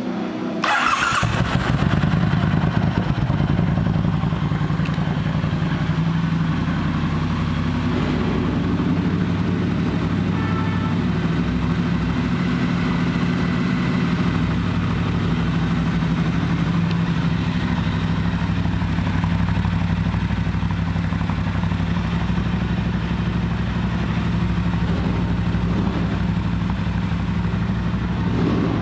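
Triumph Bonneville Bobber's 1200 cc parallel-twin engine starting about a second in, then idling steadily.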